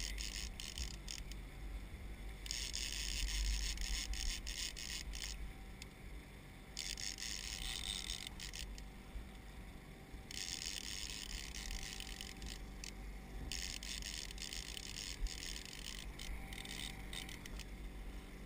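Boat motor running steadily at trolling speed, a low drone. Over it comes a hiss that cuts in and out in stretches of a few seconds.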